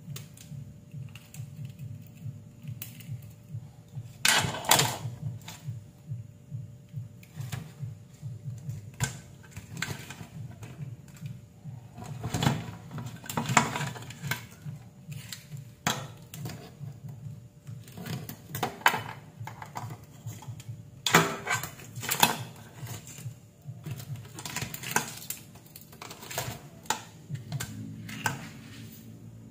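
Blue swimmer crabs being handled in a plastic basin as their rubber bands are pulled off: irregular clicks, taps and scrapes of hard shell and legs against the plastic and each other, over a steady low hum.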